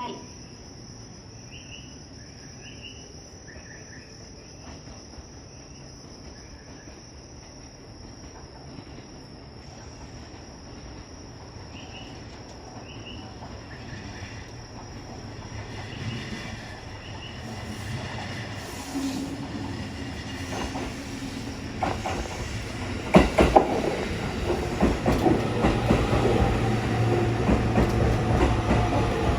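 JR East HB-E300 hybrid diesel railcar approaching and running into the platform, growing louder through the second half, with sharp wheel clicks over rail joints and a steady low engine hum near the end. Insects chirp steadily in the first half until the train drowns them out.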